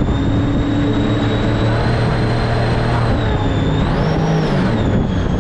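Mini jet boat running under way, with a steady engine rumble and a high whine from the drive. The whine climbs briefly about four seconds in, then settles a little lower, as the throttle is eased.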